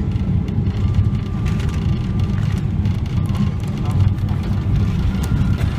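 Steady low rumble in the cabin of a Boeing 777-300ER rolling on the ground after landing, from the engines and the wheels on the pavement.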